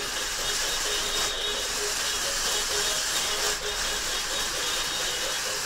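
Small electric motors of a toy RC stunt car whirring steadily.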